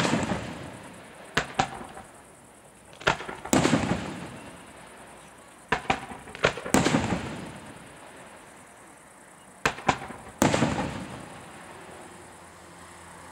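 Fireworks display: aerial shells bursting with sharp bangs, several in quick pairs, each followed by a rolling echo. The loudest come at the very start and about three and a half, seven and ten and a half seconds in.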